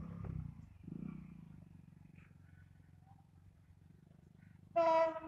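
Low, throbbing rumble of the approaching freight train's diesel locomotive, strongest in the first second or so and then fading. Near the end a loud horn blast sounds, one steady tone.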